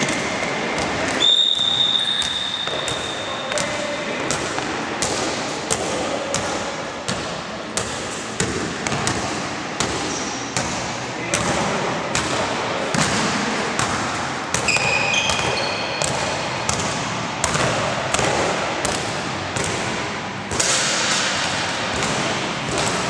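Basketball bouncing repeatedly on a gym court floor, with players' voices echoing in a large hall. There is one long high tone about a second in, and short high squeaks around the middle.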